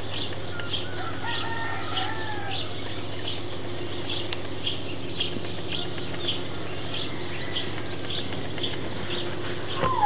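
Rooster crowing once, in the distance, during the first couple of seconds. Under it, short high chirps repeat about twice a second over a low steady hum.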